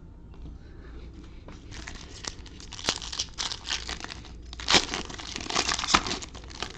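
Trading card pack wrapper being torn open and crinkled, in a run of irregular crackles that grows louder a couple of seconds in and peaks near the end.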